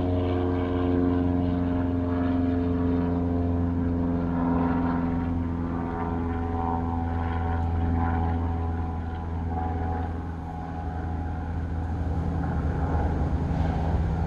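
Airplane engine droning steadily overhead, a loud low hum made of several steady tones. It eases slightly about ten seconds in and grows again near the end.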